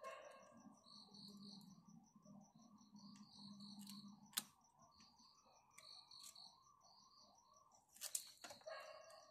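Near silence with faint, steady high-pitched chirping. A couple of sharp clicks, about four and eight seconds in, come from the plastic knee tank pad being handled against the motorcycle's fuel tank.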